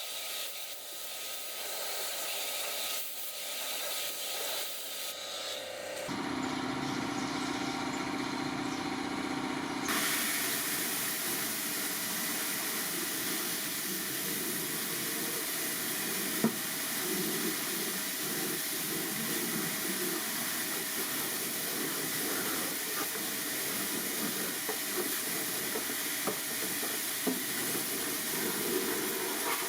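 Steady hiss of a cleaning spray jet, which changes abruptly about six and again about ten seconds in, with a few small clicks later on.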